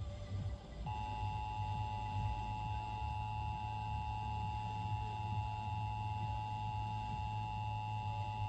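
Emergency Alert System two-tone attention signal: two steady sine tones (853 and 960 Hz) sounding together, starting about a second in and held for about eight seconds. It is the alert tone that opens an EAS broadcast, here of a tornado warning. A steady low hum lies underneath.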